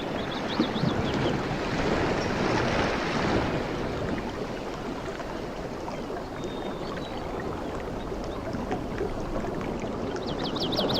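Waves washing onto a beach: a continuous rushing wash that swells about two seconds in and builds again at the end. Short runs of quick high chirps come at the start and near the end.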